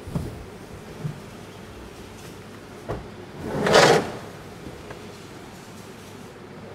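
Large polypropylene pallet box being tipped over by hand on a concrete floor: a few light plastic knocks, then a short scraping slide just under four seconds in, the loudest sound.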